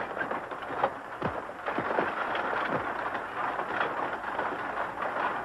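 A steady rumbling, rattling noise with scattered knocks and a few short creaks.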